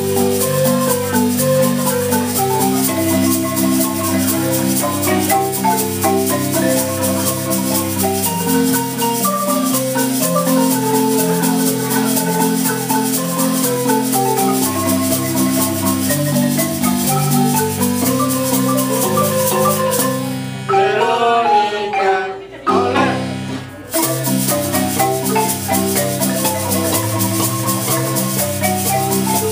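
A large wooden marimba played by four players at once: a lively tune of quick repeated mallet notes over a steady bass pattern. About two-thirds of the way through, the rhythm breaks for a few seconds of sweeping runs up and down, then the tune resumes.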